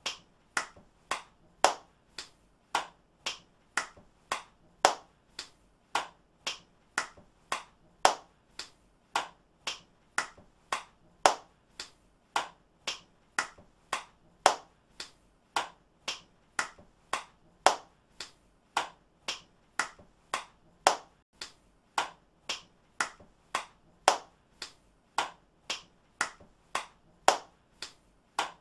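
Hand claps repeated at about two a second, each one sharp and short, some louder than others: a clapping clip looped over and over.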